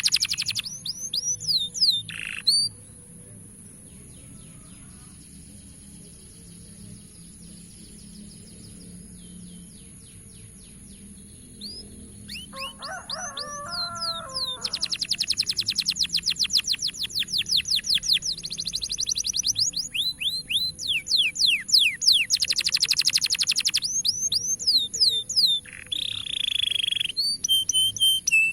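Canary song: fast rapid-fire trills and swooping chirps, dropping quieter for several seconds after the first few seconds, then coming back with long fast trill runs.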